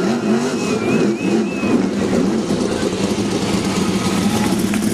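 Sprint car V8 engines running at low speed, rising and falling in pitch over the first two seconds, then holding a steady note.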